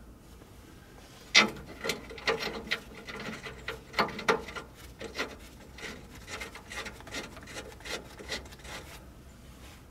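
Irregular metal clicks and clinks as an anti-seize-coated bolt with its washer is fitted and turned into rusty threads by hand. The clicks start about a second in, come in quick clusters, and thin out near the end.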